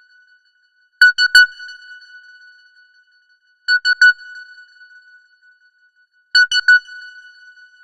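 Simple electronic phone ringtone: a quick triple beep on one high pitch, each group ringing out briefly, repeating three times at about two-and-a-half-second intervals.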